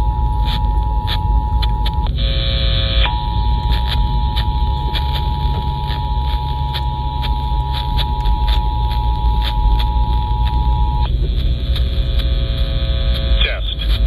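Emergency Alert System two-tone attention signal (853 and 960 Hz) playing steadily through a Midland weather radio's speaker during a Required Monthly Test. It breaks off for about a second around two seconds in, and about eleven seconds in gives way to a different, lower buzzing tone, with a voice starting near the end.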